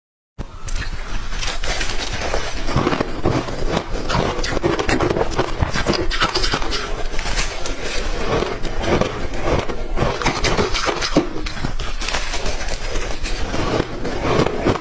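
A person crunching and chewing clear ice close to the microphone: a dense, unbroken run of sharp cracks and crunches.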